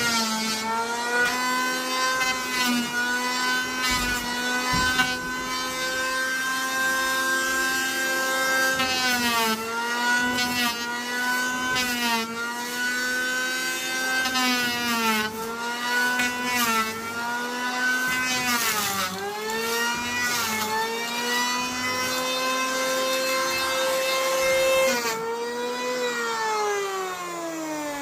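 A power tool working wood: its motor whine dips repeatedly as it bites into the timber, then runs free for a moment and winds down in a long falling glide near the end.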